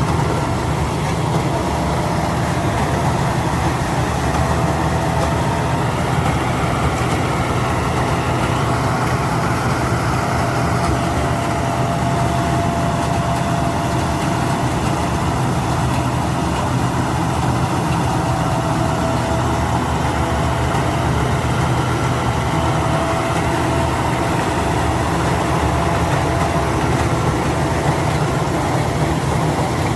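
Rice combine harvester running steadily: a constant low engine drone with a faint, steady higher-pitched whine over it.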